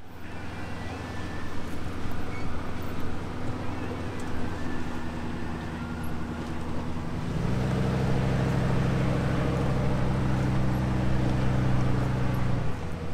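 Off-road vehicle engine running steadily as it creeps over a rocky trail. About seven seconds in, a louder, deeper steady drone takes over and runs until shortly before the end.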